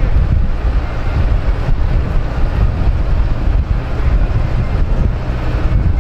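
Wind buffeting the microphone over the running noise of a moving vehicle: a steady, loud low rumble with no breaks.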